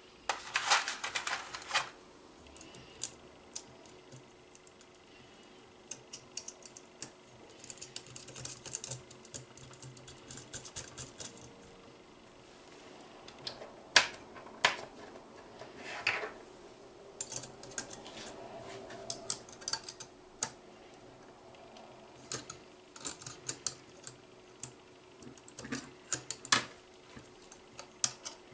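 Scattered light clicks and small rattles of hand assembly: small steel screws and nuts handled in a plastic parts tray and a screwdriver picked up and worked as an M4 screw and nut fix the ultrasonic sensor to the robot's aluminium chassis.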